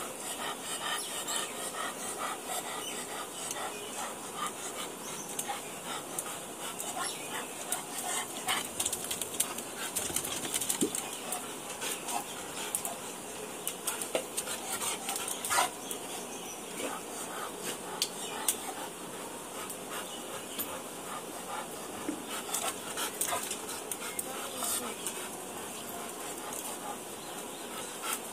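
A Labrador retriever panting steadily with its mouth open, with a few sharp clicks scattered through, the loudest about halfway.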